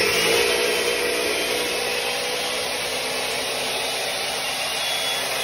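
Ninja countertop blender running at full speed, steadily blending rolled oats and liquid into pancake batter.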